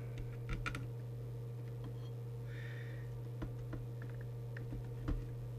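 Small scattered clicks and taps of a crocodile-clip lead and meter test prod being handled on a CB radio's circuit board and metal chassis, with a slightly louder knock about five seconds in. A steady low hum runs underneath.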